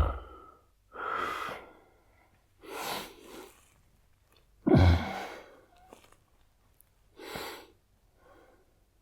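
A man snoring heavily, one breath about every two seconds. The loudest and deepest snore comes about five seconds in; the others are lighter and breathier.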